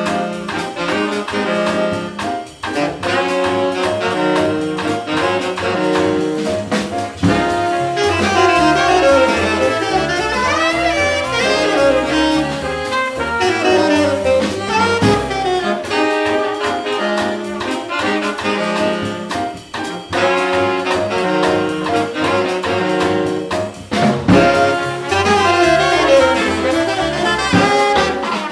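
Live jazz sextet playing a hard-bop tune: trumpet, alto and tenor saxophones playing the melody together over piano, upright bass and drums.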